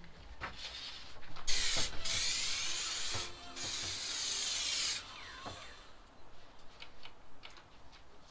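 Aerosol can of spray adhesive hissing in two long sprays with a brief break between, glue going onto the board so the carpet can be stuck down. Light clicks and rustles before and after.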